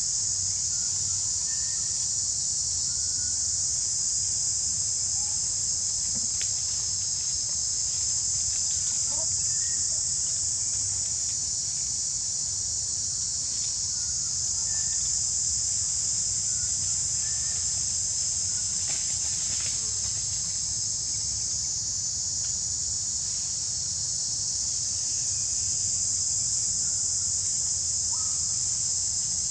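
Steady high-pitched insect chorus over a low rumble, with a few faint short chirps now and then.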